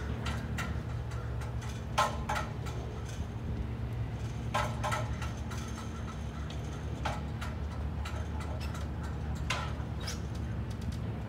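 Crows cawing, several short caws in small groups, over a steady low hum.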